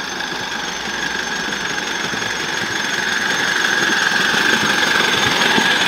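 Miniature live-steam locomotive hauling ride-on passenger cars along a narrow-gauge track, getting steadily louder as it approaches, with a clatter of running gear and wheels. A steady high-pitched squeal sits over the clatter.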